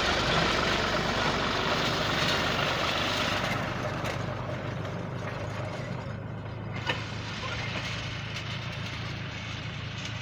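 New Holland farm tractor engine running steadily, louder for the first three or four seconds and then fainter, with one sharp knock about seven seconds in.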